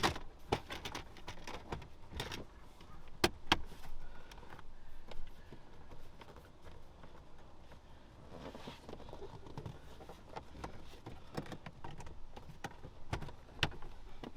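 Plastic dashboard trim panels being handled and pressed back into place inside a vehicle: scattered clicks, knocks and rubbing, with two sharper clicks close together about three seconds in.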